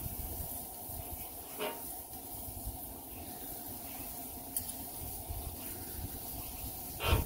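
Thin-sliced ribeye and sauce sizzling on a hot flat-top griddle, with a low rumble underneath. A knife and tongs scrape or clink on the steel twice, about a second and a half in and near the end.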